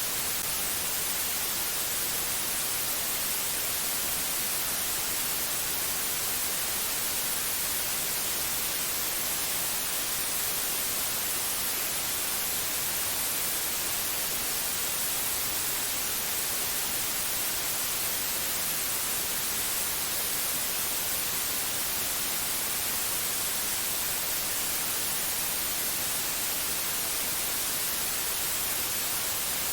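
Steady white noise: an even, unchanging hiss, brightest in the highs.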